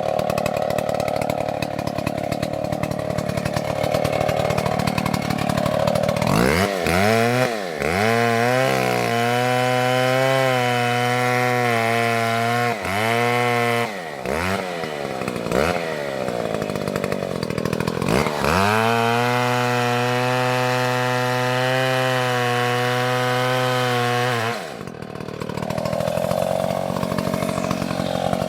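Two-stroke chainsaw running. About six seconds in it revs up to full throttle, dips and climbs again several times, holds high for about six seconds, then drops back near the end to a lower, rougher running.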